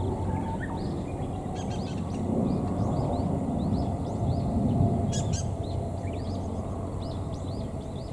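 Small birds chirping repeatedly, short high arched notes a few times a second, over a steady low rumble that swells in the middle.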